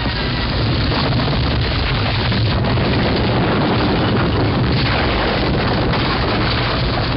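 Heavy, continuous rumbling of the giant rolling stone boulder, a film sound effect with a deep low end and a dense noisy crunch above it, building slightly about half a second in.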